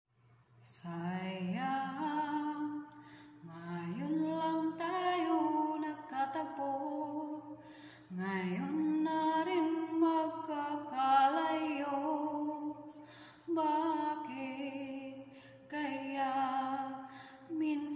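A woman singing a slow, wordless-sounding melody in long held notes, in about six phrases with brief breaths between them.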